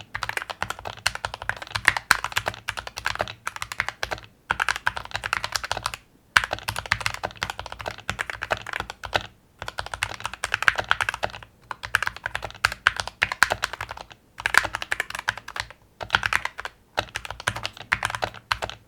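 Typing on a modded AEON AC61m 60% mechanical keyboard with lubed and filmed Gateron optical yellow linear switches, its case dampened with foam, silicone and a tape mod. Rapid runs of keystrokes come in bursts, broken by short pauses every second or two.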